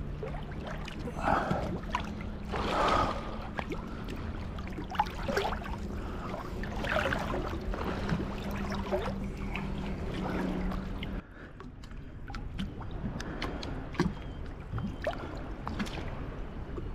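Water lapping and splashing close to a camera held at the sea's surface, over a steady low hum. About eleven seconds in the sound drops suddenly to quieter lapping with light ticks and drips.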